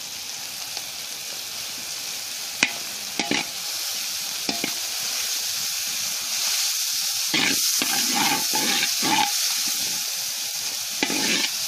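Onion, garlic, green chili and turmeric sizzling in hot oil in a large black karahi, stirred with a long-handled metal spatula that clicks and scrapes against the pan. A run of louder scraping strokes comes about seven seconds in, with another near the end.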